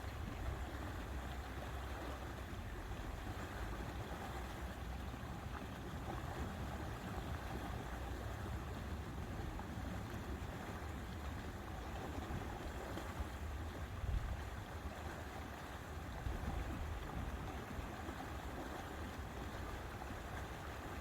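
Wind rumbling on the microphone over a steady outdoor hiss, with a few stronger gusts about 14 and 16 seconds in.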